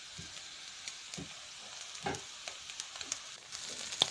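Mussels and sliced onions sizzling in oil in a non-stick pan: a steady hiss with small crackling pops, and a few soft low knocks.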